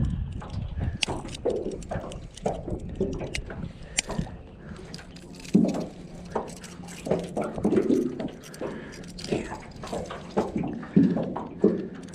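Irregular clicks, knocks and light water drips and splashes from handling a freshly caught bass and its lure in a boat.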